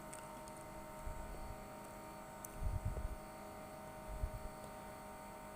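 A steady electrical hum, with a few soft low bumps and faint light ticks from a small screwdriver taking out the screws of a phone's inner frame.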